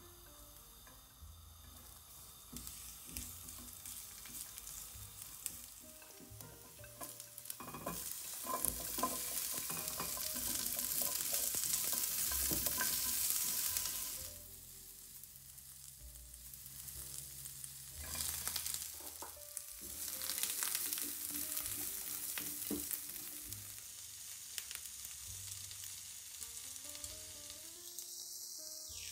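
Food stir-frying in hot oil in a pan, a dense sizzle with occasional knocks as it is stirred. The sizzle builds to its loudest, drops off suddenly about halfway through, then swells again.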